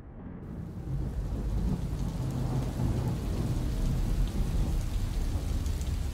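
Steady rain-like rushing noise with a deep rumble underneath, like rain with thunder, swelling about a second in.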